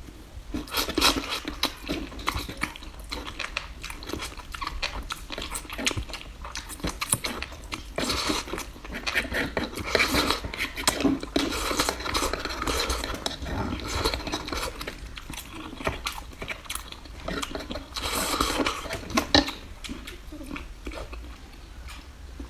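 Close-miked eating: chewing and crunching with many sharp clicks, in an irregular stream.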